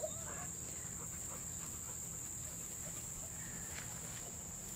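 Steady high chirring of crickets, with a brief faint puppy whine at the very start as Cane Corso puppies wrestle.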